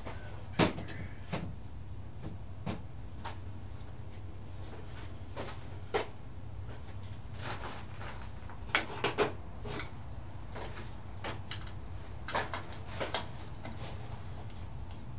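Scattered clicks and knocks of hand tools and parts being handled on a dirt bike during a teardown, over a steady low hum. The loudest knock comes about half a second in, and three come in quick succession around nine seconds.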